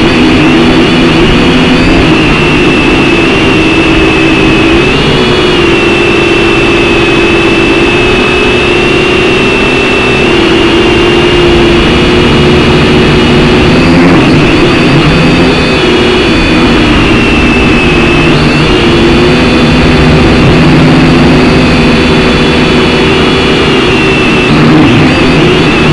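Syma X5C quadcopter's four small brushed motors and propellers whining steadily in flight, the pitch rising and falling a little as the throttle changes.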